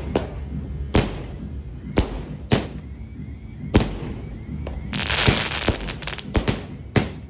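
16-shot consumer fireworks cake firing: sharp bangs one after another, roughly one or two a second, each with a short echo. About five seconds in comes a denser noisy burst lasting about half a second.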